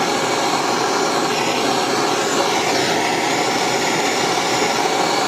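Propane torch flame running steadily with an even hiss, heating a brass and stainless steel joint up to silver-soldering temperature.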